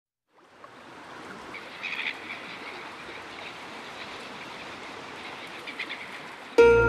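Night pond ambience: a steady hiss with a few short animal calls, a cluster about two seconds in and another near six seconds. Music with clear, plucked-sounding notes starts suddenly just before the end.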